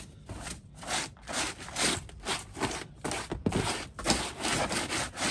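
Broom bristles sweeping a truck's floor carpet in quick, repeated scraping strokes, about three a second.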